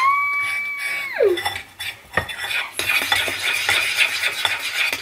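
Metal spoon stirring protein powder into hot oatmeal in a ceramic bowl, scraping and clinking against the bowl's sides. Near the start a brief squeal rises, holds for about a second and drops away.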